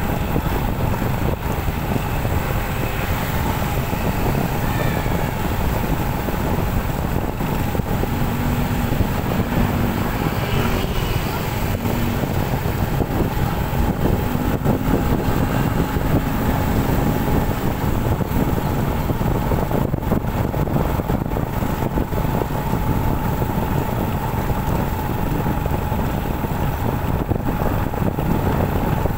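Motorcycle running steadily under way, its engine drone mixed with wind rushing over the microphone.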